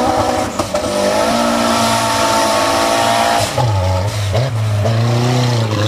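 Mitsubishi Eclipse's engine revving high as the car drives up a mud slope; about three and a half seconds in the revs drop sharply and the engine runs lower, rising and falling.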